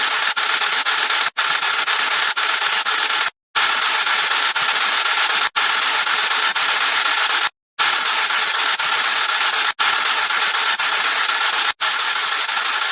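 Fidget spinner whirring steadily, cut by brief dropouts about every two seconds where the sound stops and starts again.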